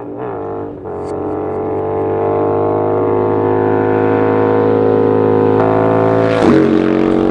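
Cruiser-style motorcycle engine running at a steady speed, growing louder as it approaches, then dropping in pitch as it passes close by about six and a half seconds in.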